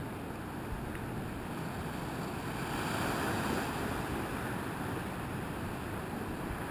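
Pacific surf breaking and washing over a rocky shore, a steady rush that swells for a second or two about halfway through and then eases back.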